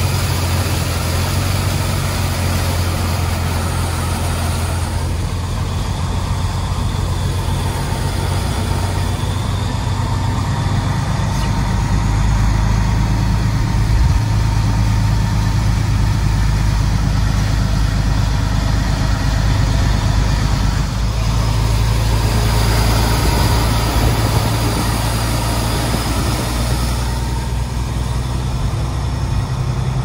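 Semi truck's engine running steadily as it drives through a flooded street, with water spraying off the tyres and heavy rain on the cab.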